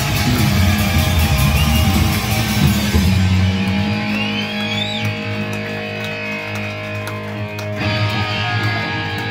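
Live rock band with electric guitar: the full band drops out about three seconds in, leaving guitar chords ringing and sustaining, and a new guitar chord is struck near the end.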